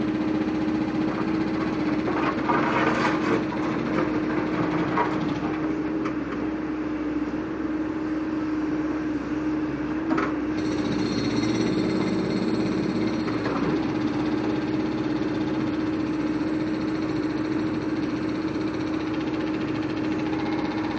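Caterpillar 416C backhoe loader's diesel engine running steadily under load as the backhoe works. Clattering bursts a few seconds in and a sharp knock about ten seconds in come from the bucket handling broken concrete slabs.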